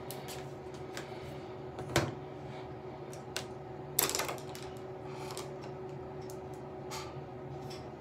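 Makeup items being handled: a few sharp clicks, the loudest about two seconds in, then a click with a brief clatter about four seconds in, over a steady low hum.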